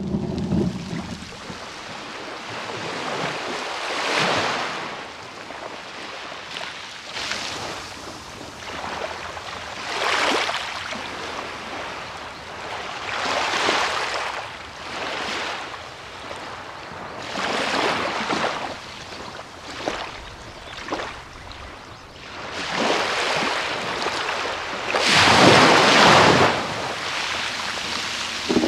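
Sea waves breaking and washing onto a beach, a swell of surf every few seconds, with the biggest wave near the end.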